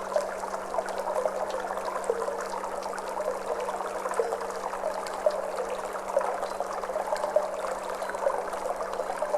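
Water flowing and trickling steadily, with many small splashes. A faint, steady low tone runs underneath.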